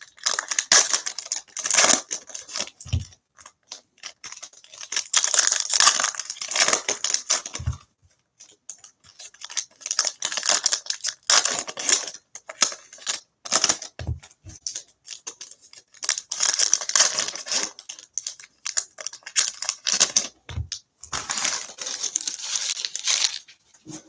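Foil wrappers of Panini Mosaic basketball card packs being torn open and crinkled by hand, in five separate spells, one per pack. Each spell ends with a short, soft low thump.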